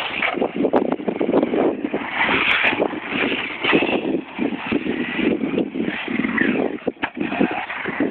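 Electric brushless RC monster truck driving on a dirt track: motor whine rising and falling with the throttle over the rush of tyres on loose dirt.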